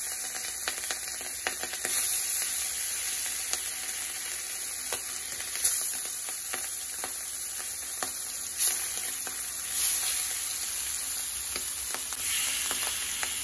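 Hilsa fish pieces shallow-frying in hot oil in a wok: a steady sizzling hiss full of small crackles, swelling louder now and then.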